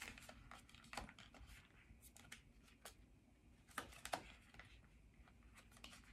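Faint, scattered clicks and taps of fingernails on a paperboard cosmetics box as it is handled and picked at to work it open, with a few louder clicks about a second in and twice near four seconds in.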